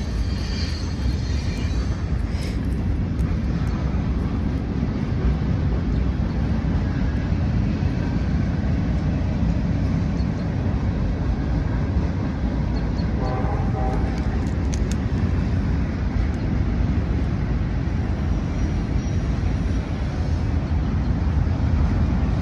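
Steady low rumbling background noise with no clear events.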